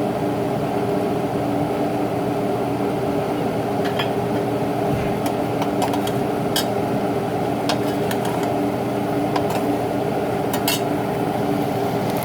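Scattered light clinks and knocks of cookware and utensils over a steady background hum.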